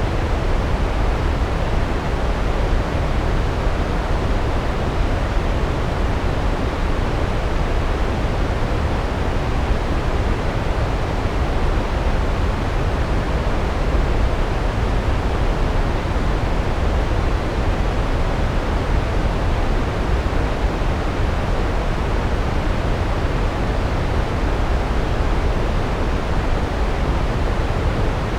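Large waterfall: a steady, unbroken rush of falling water, heaviest in the low rumble.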